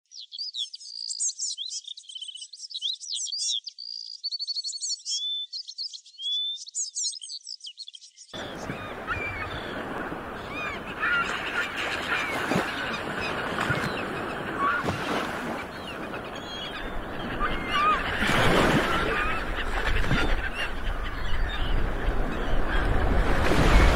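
Birdsong: first a fast, high songbird song of chirps and trills with no low end. About a third of the way in it cuts abruptly to a denser bird chorus over a background hiss, with a few loud, harsh honking calls later on.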